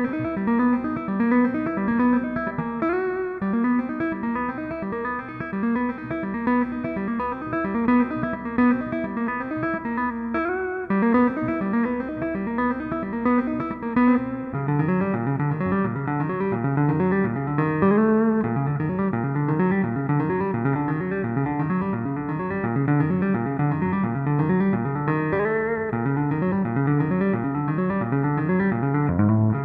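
Instrumental music on a 10-string guitar: plucked, picked notes over a repeating bass pattern, with the bass part shifting lower and stronger about halfway through.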